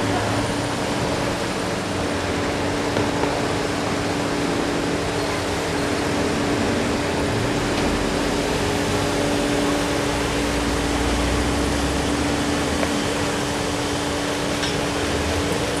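Steady street traffic noise: an even rush with a constant low hum, and a deeper rumble that swells about eight seconds in and fades a few seconds later.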